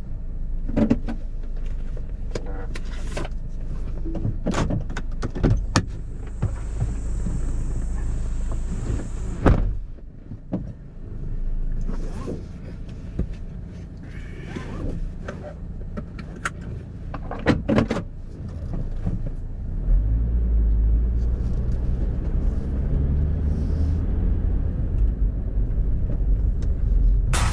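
Inside a moving car: a steady low rumble of road and engine noise, with scattered knocks and rattles from bumps. A high whine holds for a few seconds about six seconds in.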